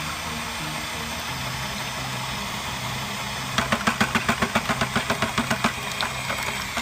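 Steady background music. About halfway through, a rapid run of sharp taps, about six a second for nearly three seconds: a small metal tint can being knocked against the plastic pail to empty the colour into the urethane.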